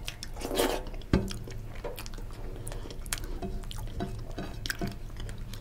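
Wet, squishy chewing and mouth clicks of someone eating soft khichuri by hand, with many short sharp clicks, over a low steady hum.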